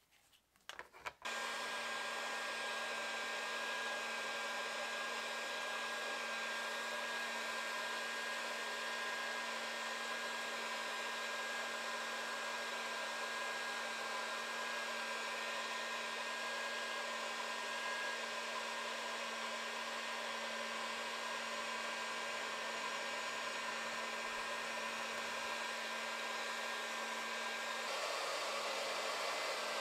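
Steady whir of a small electric blower motor with rushing air, switched on abruptly about a second in; its sound shifts slightly near the end.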